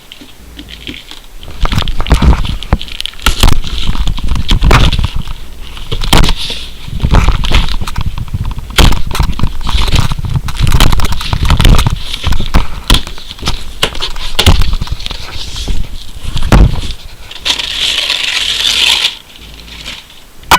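A mailed package being opened and torn apart by hand: the packaging scrapes, tears and crinkles, with many sharp crackles and knocks as it is handled. There is a longer, denser rustle near the end.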